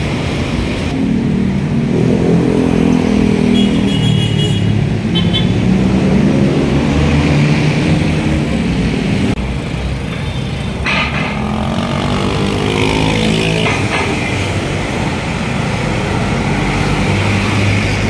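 Street traffic passing close by: motorcycle and car engines rising and falling as vehicles go past, with a few short high horn beeps about four seconds in.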